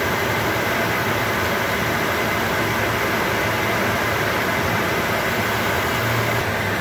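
Learjet 35 cockpit noise in high-altitude cruise: a steady rush of airflow with the jet engines' hum and a faint high whine underneath, unchanging throughout.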